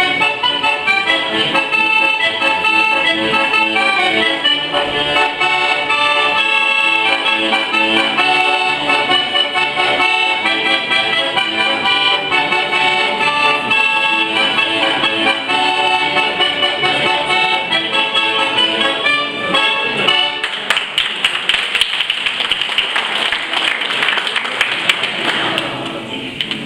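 Diatonic button accordion (organetto) playing a lively tune with quick runs of notes. About twenty seconds in, a dense clattering noise takes over for some five seconds before the playing comes through clearly again.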